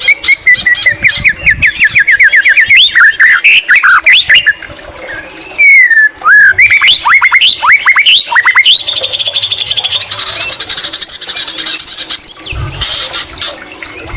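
White-rumped shama singing a loud, varied song of quick runs of sliding and falling notes and fast trills, with a brief lull about halfway through. Its song is laced with mimicked greater green leafbird phrases.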